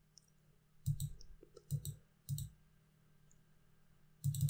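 Computer mouse button clicking: a few separate clicks in the first half, then a quick run of clicks near the end.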